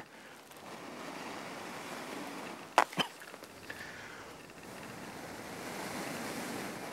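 Long breaths blown into a smouldering tinder bundle to bring the coal up to flame, a steady rushing hiss that swells and eases. Two sharp clicks come about three seconds in.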